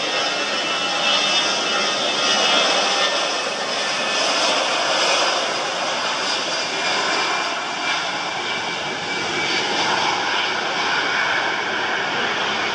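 Jet engines of an easyJet Airbus A320-family airliner running as it rolls along the runway: a steady rushing engine noise, with a faint high whine in the first few seconds that fades.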